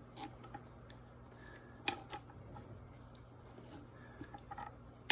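Faint scattered clicks and light knocks of metal tools (needle-nose pliers on a valve extender) against a scooter's tubeless wheel rim, as a rubber valve stem is tugged through the rim's valve hole toward its seat. A sharper click comes at about two seconds and another at the very end.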